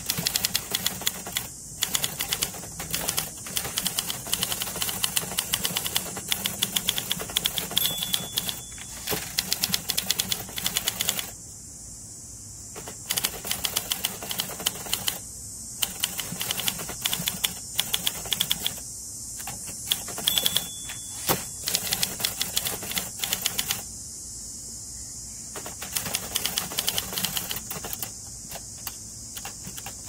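1960 Olympia SM-4 manual typewriter being touch-typed fast: a dense, rapid run of key and typebar strikes, pausing briefly twice.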